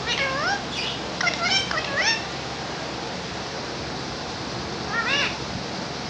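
Rose-ringed (Indian ringneck) parakeet vocalising: a run of short, pitched calls that glide up and down in the first two seconds, then one more call about five seconds in, over a steady hiss.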